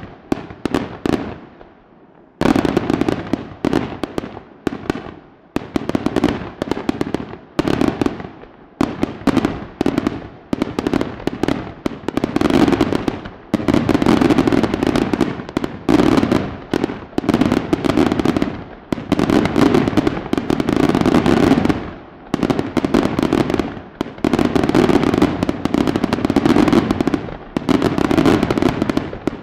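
Aerial fireworks display by Palmese Fireworks: shells bursting in dense, rapid-fire volleys of bangs. After a short lull about two seconds in, the bangs run almost without a break.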